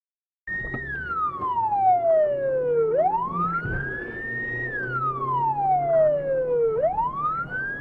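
Police siren wailing: a tone that holds high, slides slowly down, then sweeps back up, about one cycle every four seconds, over the steady hum of a car engine. It starts suddenly about half a second in.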